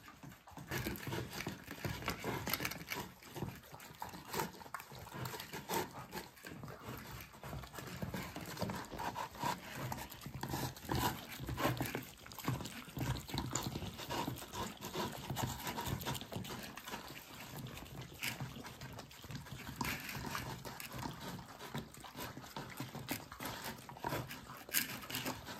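Several dogs eating wet food out of plastic slow-feeder bowls: an irregular run of licks and chews with small knocks.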